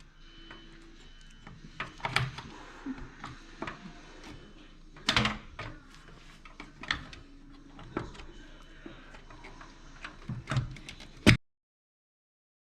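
Scattered clicks, knocks and light metal rattles of a graphics card being fitted into a PC case's PCIe slot, with one sharp click near the end, after which the sound cuts off.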